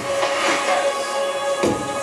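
Music for the dance: a steady held note, with a sharp percussive hit about one and a half seconds in.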